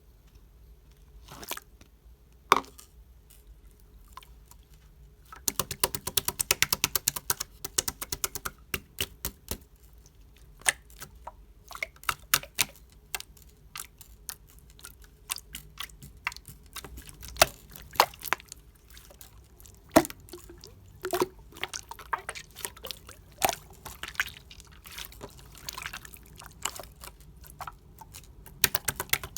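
Clear glitter slime squeezed and worked by hand, giving wet clicks and pops as air bubbles burst. The clicks come thick and fast for a few seconds early on, then in scattered single pops.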